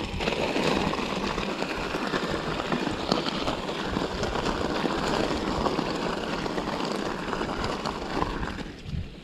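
Mountain bike tyres crunching over dry fallen leaves and gravel on a trail, with the small rattles and clicks of the bike riding over rough ground. The noise eases off near the end.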